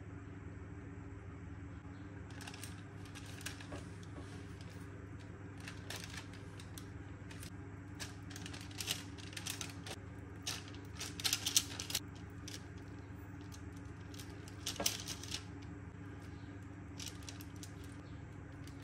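Metal spoon clicking and scraping in irregular bursts while scooping sticky bread dough into lumps onto parchment paper, busiest a little past the middle, over a steady low hum.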